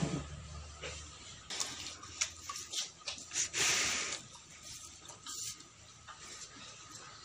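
Cattle eating wet mash from a concrete trough: a few short breathy bursts of noise as they blow and feed, the longest and loudest about halfway through.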